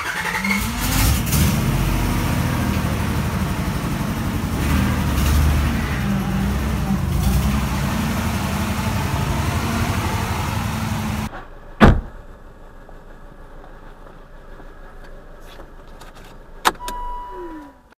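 Car engine running while driving, a steady low drone that cuts off abruptly about two-thirds of the way through. A sharp knock follows, then a quieter stretch with another click near the end.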